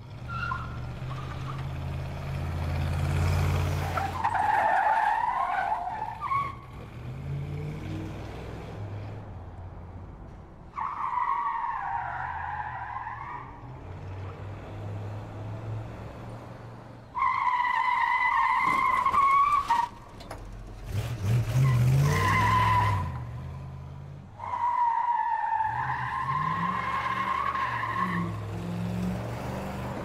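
Muscle car engine running under throttle while its tyres squeal through a series of skids. There are about five squeals, each lasting one to three seconds, and several sag in pitch as they fade; the engine rumbles steadily underneath.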